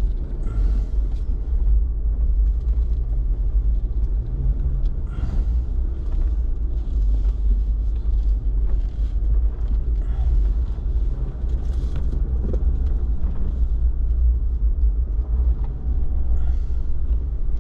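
Four-wheel-drive vehicle driving along a soft sand track: a steady low engine and drivetrain rumble, with short swishing noises every few seconds.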